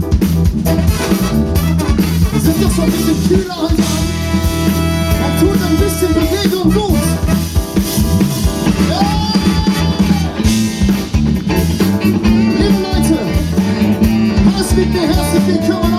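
Band music in a ska-like style: a drum kit keeps a steady beat under long held horn notes.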